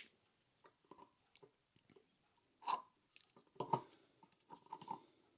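A few small, scattered clicks and knocks of handling, one sharp click about halfway through the loudest: a syringe and oil bottle being handled as more brake oil is drawn up for bleeding the hydraulic brake.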